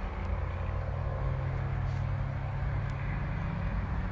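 Steady low rumble of vehicle noise, like a nearby car engine or road traffic.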